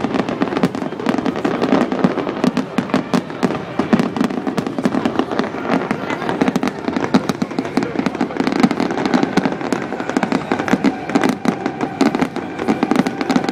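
Fireworks display: a dense, continuous run of sharp bangs and crackles, many each second, with no let-up.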